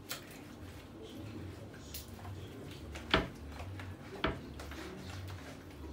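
Kitchen handling sounds: two sharp knocks a little over a second apart about three and four seconds in, the first the louder, with a few lighter clicks, over a faint low hum.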